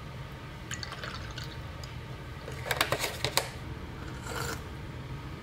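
Soy milk poured from a carton into a glass mug of cold brew coffee, glugging for under a second about halfway through. A short sip from the mug comes near the end.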